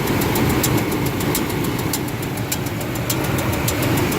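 Ford F150's 4.2-litre V6 idling with a metal-on-metal knock: sharp clicks about three times a second over the engine's steady running. It is the sign of a misaligned rocker arm and push rod under the valve cover.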